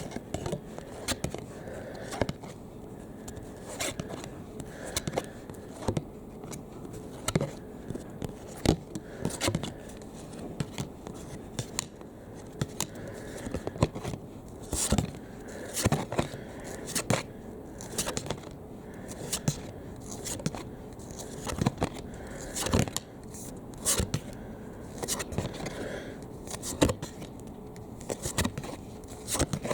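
Trading cards and their packaging being handled by hand: irregular sharp clicks and scrapes, about one or two a second, as cards are slid and flipped against each other.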